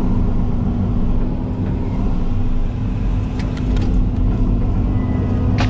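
Engine and road noise heard inside the cab of a small rented goods truck as it drives along: a steady low rumble with a constant hum.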